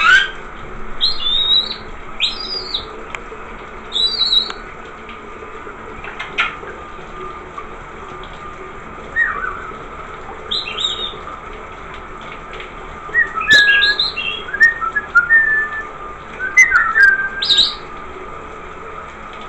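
Rainbow lorikeet giving short chirps and whistles in scattered bursts, busiest near the end, over the steady hiss of a running shower.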